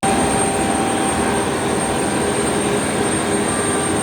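Airbus A320neo cabin noise: a steady rush of jet engines and airflow with a thin, high steady whine, starting abruptly.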